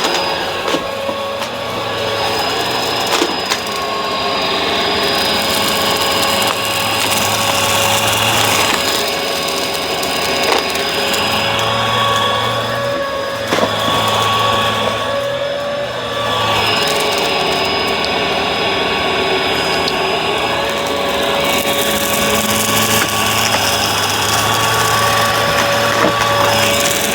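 Bissell vacuum cleaner running: a steady motor whine over a rushing air noise that swells and fades every few seconds.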